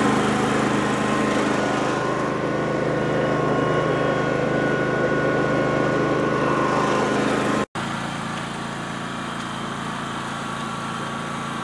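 Riding lawn tractor's engine running steadily while it tows a walking plow, with a faint steady whine above the engine. About eight seconds in the sound cuts off sharply and comes back quieter, the tractor heard further off.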